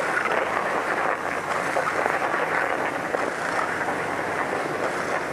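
Head Kore skis sliding and scraping over groomed snow at speed: a steady rushing hiss with no pauses.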